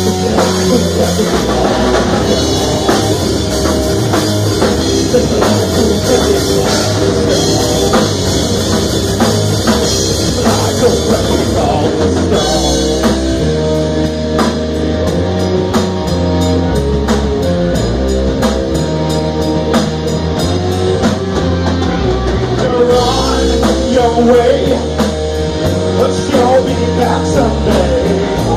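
Live rock band playing loud, with drum kit and guitar.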